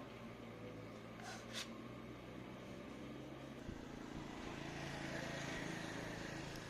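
A low, steady mechanical hum. A brief rasp comes about a second in, and a hissing swell grows louder through the second half.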